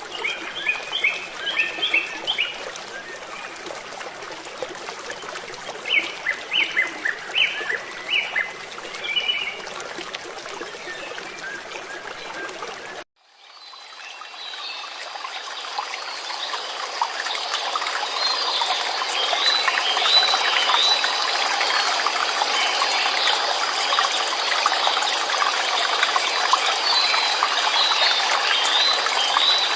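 Water trickling and flowing steadily while small birds chirp in short bursts. About thirteen seconds in the sound cuts off abruptly and returns as louder, fuller running water, with more chirping over it.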